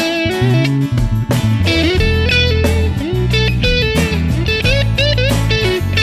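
Background music: a guitar-led instrumental whose melody slides and bends between notes over a steady bass.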